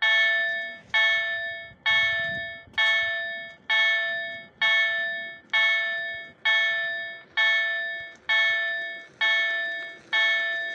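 Level-crossing warning bell ringing in an even series of strikes, a little more than one a second, each strike ringing out and fading before the next: the crossing is active with its barriers down for a train.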